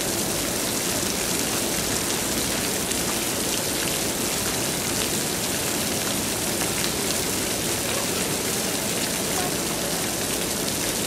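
Steady hiss and patter of water from jumping-water fountain jets falling onto a pool and wet ground.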